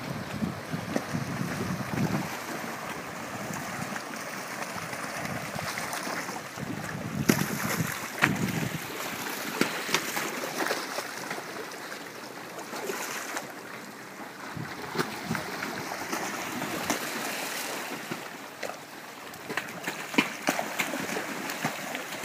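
Fish splashing and churning the water surface as a school of jacks chases mullet: a steady hiss of disturbed water broken by many sharp splashes. Gusts of wind rumble on the microphone for about the first eight seconds.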